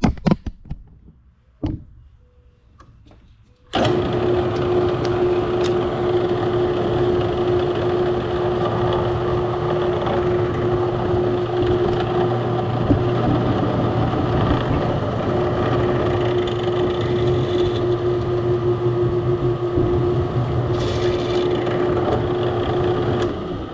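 A few handling clicks, then a Wen benchtop drill press switched on about four seconds in, its motor running steadily at about 1100 RPM with a constant hum and a steady tone. It winds down at the very end.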